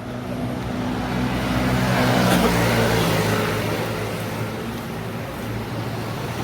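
A motor vehicle's engine running close by in street traffic, growing louder to a peak about two seconds in and then easing off, over the general noise of road traffic.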